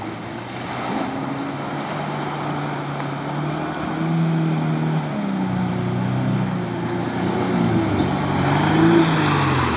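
A first-generation Subaru Forester's flat-four boxer engine revving up and down as it pushes through a muddy bog hole, with water and mud splashing around it. It grows louder as it comes closer, and the splashing is loudest near the end.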